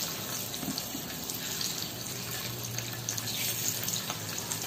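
Hot oil sizzling steadily in a nonstick frying pan as halved hard-boiled eggs are set into it, with a low steady hum underneath.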